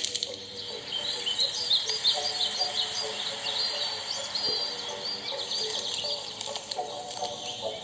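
Recorded birdsong played back as a video's soundtrack: many quick, high chirps and twitters, over a few steady held low tones.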